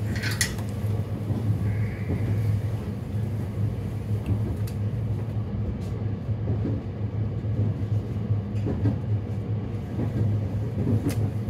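Running noise heard inside a moving train car: a steady low rumble of the wheels on the rails with a constant low hum, and a few brief clicks.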